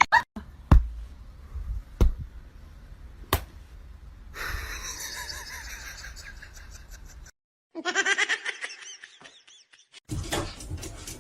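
Three sharp knocks or slaps about a second and a half apart, then a stretch of noisy sound and a burst of laughter.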